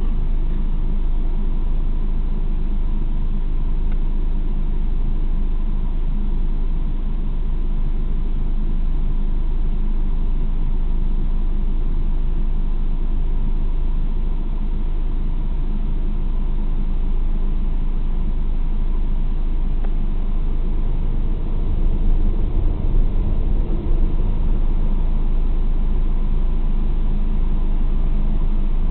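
Drive-through car wash heard from inside the car: rotating cloth brushes and water spray working over the bodywork make a steady low rumble. The rumble swells and turns uneven for a couple of seconds about three quarters of the way through.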